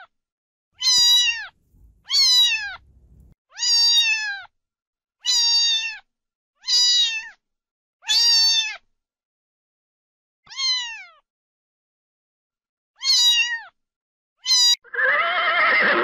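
Domestic cat meowing repeatedly, about nine separate meows, each dropping in pitch at its end. A horse's whinny starts about a second before the end.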